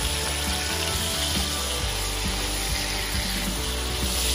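Prawns frying in hot oil in a kadai, a steady sizzle as they are stirred with a spatula, under background music.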